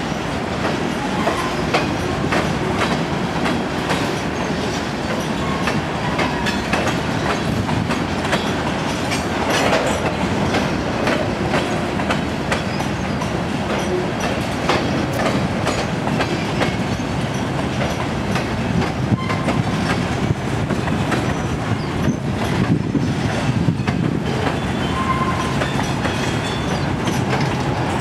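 Freight cars of a Union Pacific manifest train, covered hoppers and then boxcars, rolling past: a steady rumble of wheels on rail with repeated clicks over the rail joints. A few brief wheel squeals come through now and then.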